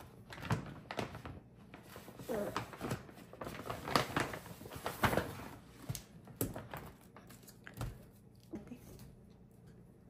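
Crinkling and rustling of a laminated plastic tote bag as a child rummages in it and pulls out a plastic tube of candy, in irregular crackles that thin out after about seven seconds.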